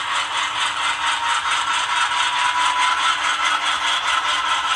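HO scale GE C44-9W model locomotive running, its ESU LokSound decoder playing the diesel engine sound through the small onboard speaker, with a fast, even pulse throughout.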